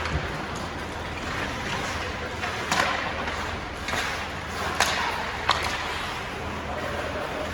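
Ice hockey play heard in a rink: skates scraping the ice and a handful of sharp knocks of sticks and puck, over the steady noise of the arena.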